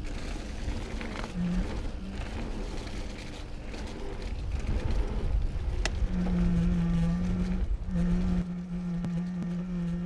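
Low rumble of a mountain bike rolling downhill over a leaf-covered dirt trail, then from about six seconds in a camera gimbal's motors set up a loud, steady vibrating hum that drops out briefly near the eighth second and returns.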